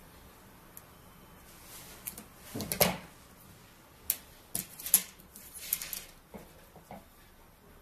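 Hands handling radial component carrier tape and splice tape: irregular crinkling rustles and sharp small clicks, loudest near three and five seconds in.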